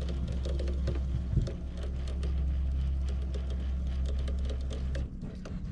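Fishing reel being cranked in on a hooked kokanee, giving a rapid run of small clicks, over a steady low hum that cuts out about five seconds in.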